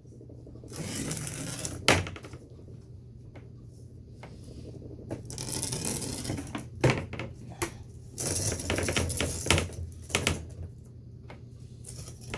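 Old screen spline and mesh being pried and pulled out of a window-screen frame's channel: several rasping pulls with sharp clicks and snaps between them.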